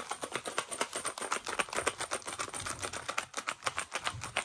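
Rapid ratchet clicking, about ten clicks a second and uneven in loudness, running without a break, as fittings on a small wooden children's table and chair are tightened.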